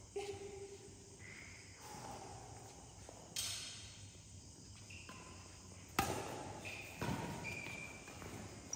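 Badminton rally: a few sharp racket strikes on the shuttlecock, echoing in a large gym hall, with short high squeaks from court shoes between the hits.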